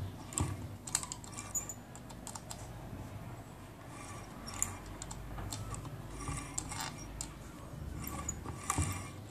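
Homemade DC motor turning, with irregular clicking and scratching from its brushes on the commutator over a low hum.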